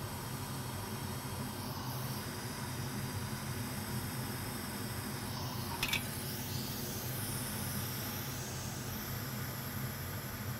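Steady background hiss over a low hum, with a single short click about six seconds in.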